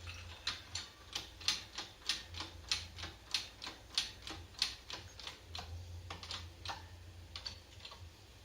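A steady run of sharp, light clicks, about three a second, fading out near the end.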